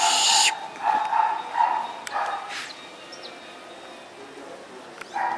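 Three-month-old toy poodle puppy yipping: a quick run of short, high yips in the first two and a half seconds, then one more near the end.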